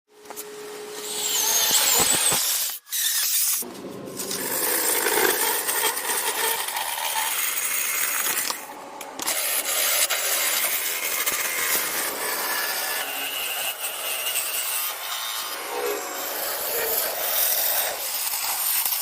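Wood being cut and shaped with hand tools: continuous sawing and rasping scrapes, broken by short gaps about three, four and nine seconds in.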